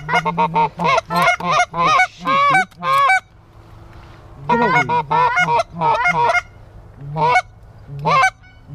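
Canada goose honks and clucks, loud and close: a fast run of calls for about three seconds, a brief pause, a second quick run, then two single honks near the end.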